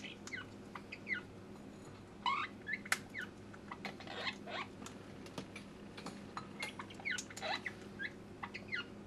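Parrot giving many short, squeaky chirps that rise and fall in pitch, mixed with scattered sharp clicks, over a faint steady hum.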